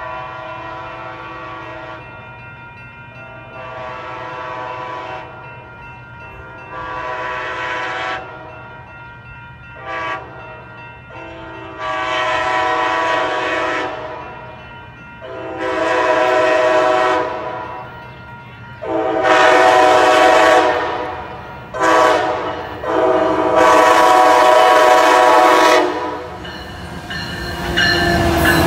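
Horn of a Siemens SC-44 Charger locomotive leading an approaching Amtrak Pacific Surfliner, sounding a series of blasts for the grade crossings: mostly long blasts with two short ones, each louder than the last as it nears. Near the end the train arrives with a rush of wheel and rail noise.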